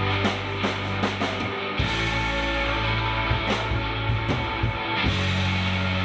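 Live rock band playing: electric guitar, electric bass guitar, drum kit and trumpet. Held bass notes run under the music, with sharp drum hits through it.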